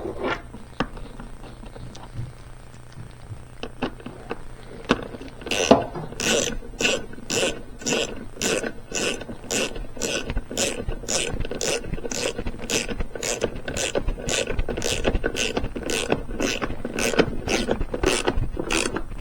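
A ratchet wrench with a 10 mm socket running the air-filter cover bolt into a small generator. A few light taps and handling noises come first, then from about five seconds in a steady run of ratchet clicks, about two a second.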